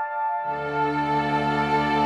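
Film score music over the end credits: held, sustained chords, with a fuller chord and a low bass coming in about half a second in.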